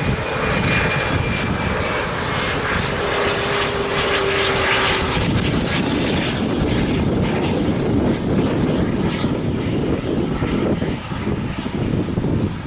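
Airliner flying low past, with loud, steady engine noise. A faint whine in it sinks slightly in pitch over the first five seconds, and the low rumble grows fuller after that.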